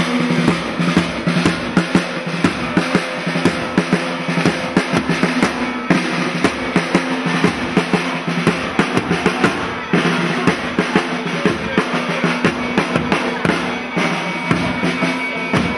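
Drums beating steadily, snare and bass drum together, over a steady low held tone from another instrument.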